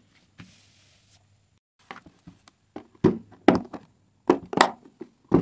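Handling of a purple plastic diamond-painting storage case full of small bottles: a soft rustle about half a second in, then about five sharp plastic clicks and knocks over the last two and a half seconds.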